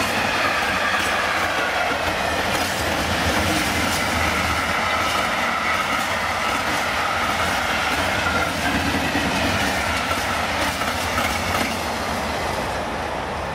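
Empty flat freight wagons rolling past, wheels clattering over the rail joints with a wavering squeal from the wheels. The sound starts to fade near the end as the last wagon goes by.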